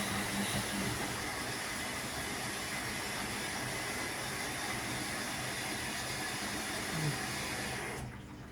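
Electrolux EW1057F front-loading washing machine running at the end of its main wash, with water sloshing over a steady motor hum. The noise drops away sharply near the end.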